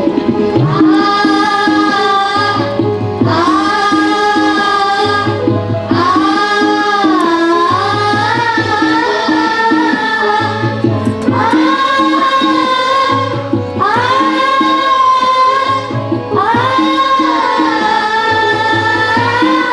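Group of schoolchildren singing a song together through stage microphones, in sung lines of a couple of seconds each with short breaths between, over a steady hand-drum rhythm.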